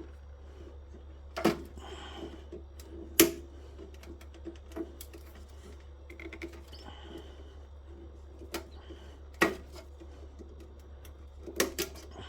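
Hand tools clinking and knocking against the metal parts of a solar inverter being taken apart: a handful of sharp knocks, the loudest about three seconds in and a quick cluster near the end, with softer taps between, over a steady low hum.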